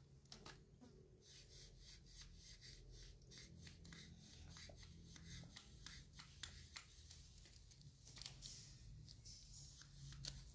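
Faint, irregular clicks and scraping of a screwdriver turning screws into an electric fan's motor casing as the motor is reassembled.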